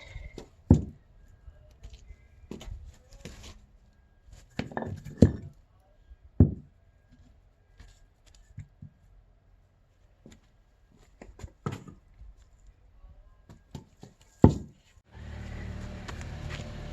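An axe striking and splitting firewood: a series of single sharp wooden knocks at uneven intervals, some in quick pairs. About two seconds before the end the knocks give way to a steady low rumbling noise.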